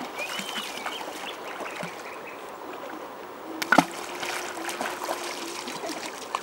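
Gentle trickling of a shallow river, with a few short chirps near the start. About four seconds in, a thrown stone lands with one sharp plop.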